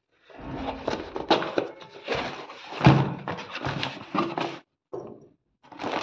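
A cardboard shipping box being handled and torn open by hand: a string of irregular knocks, scrapes and rips of cardboard and packing tape. It stops briefly near the end, then plastic wrapping and cardboard are handled again.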